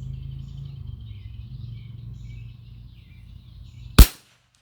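Anschutz 1761 .22 LR rifle firing a single shot about four seconds in, one sharp crack. Before it there is a low steady hum with faint bird chirps.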